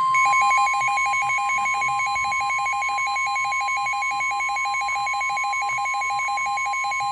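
NOAA Weather Radio warning alarm tone: one steady high single-pitched tone held without a break, the signal that a warning follows. Over it runs a weather radio's own fast electronic alert beeping, about eight beeps a second, alternating between a lower and a higher pitch.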